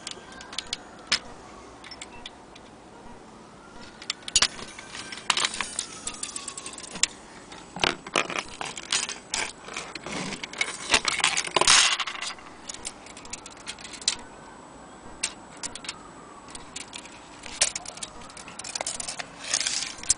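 Brass clock movement and loose metal clock parts clinking and rattling as they are handled, in three bursts of sharp clicks, the loudest in the middle.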